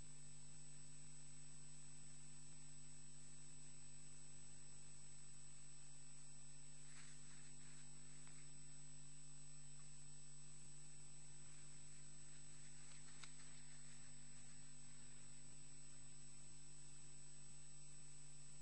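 Steady electrical hum and a thin high whine from the nest camera's audio, with a few faint, brief sounds about seven and thirteen seconds in.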